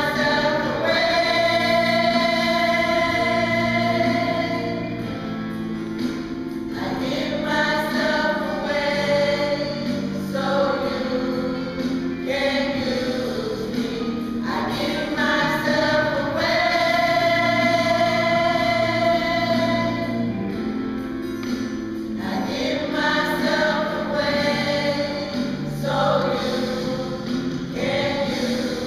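A choir of mostly women singing together in long held chords, one phrase after another of a few seconds each.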